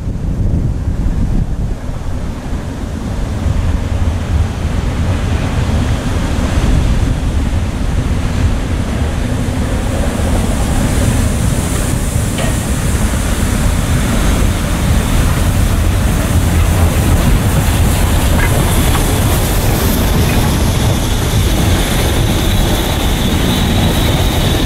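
Narrow-gauge steam locomotive hauling a passenger train, approaching and passing close by, its running noise growing louder, with wind buffeting the microphone. A thin high squeal comes in near the end as it passes.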